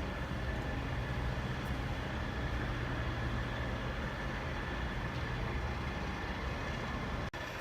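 An engine idling steadily with a low, even hum, cut off abruptly near the end.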